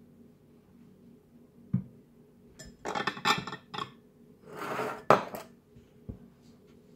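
White china bowls and plates clattering and clinking against each other as they are lifted apart and set down. A single knock, then a burst of clatter around three seconds in, a short scrape, and a sharp clink, the loudest, just after five seconds.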